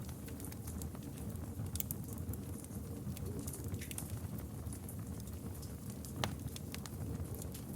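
Campfire crackling: burning wood giving frequent sharp snaps and pops over a steady low rumble of the flames, with one louder pop about six seconds in.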